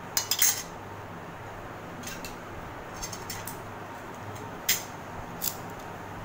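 Light clinks of cutlery and plates, a quick cluster just after the start and single ones around two, three and five seconds in, over the steady low hum of an electric fan.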